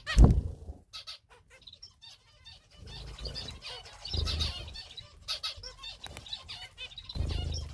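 Small cage finches and canaries chirping busily in quick high notes, with bursts of wing flapping about four and seven seconds in. A loud thump comes just after the start.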